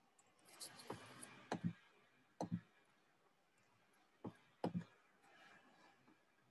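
Computer mouse buttons clicking: four or five separate clicks, most heard as a quick press-and-release pair, with a brief soft rustle about a second in.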